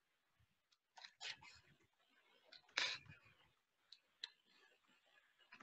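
Near silence broken by a few faint clicks at a computer desk, mouse and keyboard handling, with one brief louder noise about three seconds in.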